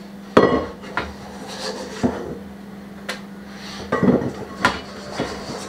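A steel mixing bowl being scraped out, with a series of sharp metal clanks and scrapes of a utensil against the bowl. A steady low hum runs underneath.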